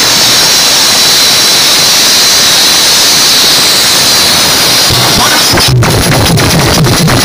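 Stacked DJ speaker boxes blaring a loud, steady hiss with a high whistling band that shifts slightly. Nearly six seconds in it breaks off and a fast pounding beat starts again.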